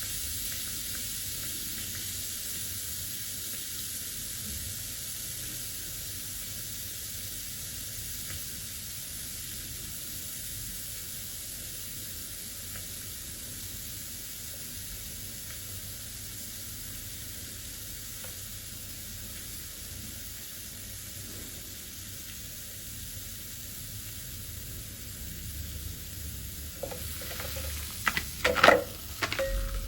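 Steady fizzing hiss of seashells soaking in diluted oxalic acid, slowly dying down. Near the end come a few sharp clicks and knocks, the loudest of them just before the end.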